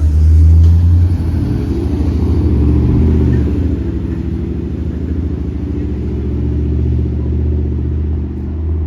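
Ford 7.3L gasoline V8 of a 2023 Blue Bird Vision school bus running under way, a steady low engine drone, loudest about the first second, that cuts off suddenly at the end.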